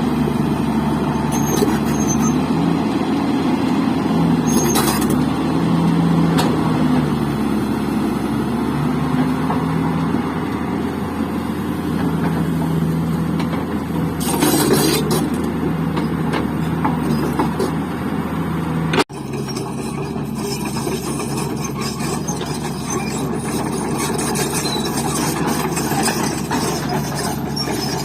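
Heavy diesel engine running steadily, with a few short hisses. The sound breaks off sharply about two-thirds of the way through and carries on with a different character.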